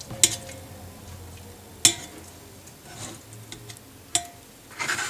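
A spoon stirring in a saucepan of lemon slices and herbs, pressing the lemons to squeeze out their juice: three separate knocks of the spoon against the pot, one ringing briefly, and a short scrape near the end.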